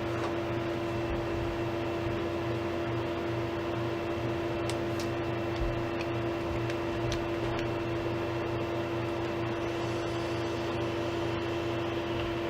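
Steady machine hum with one constant tone running through it, and a few faint, light clicks.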